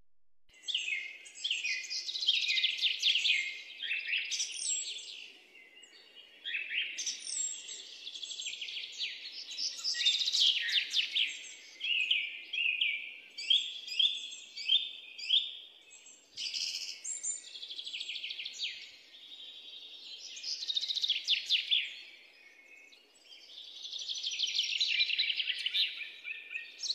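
Birds chirping and singing in long bursts of rapid, downward-sweeping chirps, with short lulls between the bursts.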